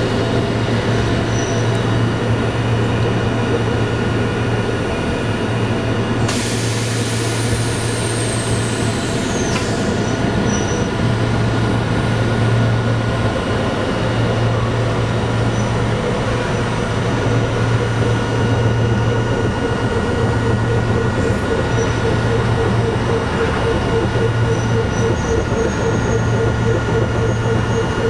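Fukui Railway 770-series tram running, heard from inside the car: a steady low hum and rumble of the running gear. About six seconds in, a loud high-pitched wheel squeal lasts some three to four seconds, its pitch falling just before it stops.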